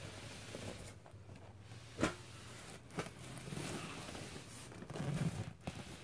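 Handling noise of a large cardboard box being turned around: soft scraping and rustling, with a sharp knock about two seconds in and a smaller one about a second later.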